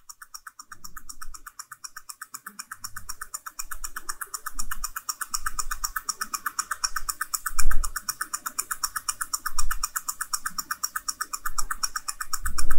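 Quick, perfectly even ticking of a mechanical watch movement, amplified close up, with deep low thuds underneath about eight seconds in and again near the end.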